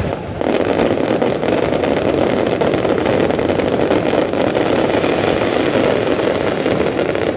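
Rapid-fire barrage of display fireworks: many launches and bursts run together into one dense, continuous crackling din. It starts about half a second in and breaks off near the end.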